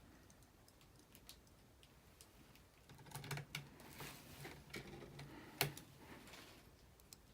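Faint scattered clicks and taps of small screws and a screwdriver as the screws are put back into a laptop's replacement LCD panel. They come sparsely at first, then more often, with one sharper click near the end.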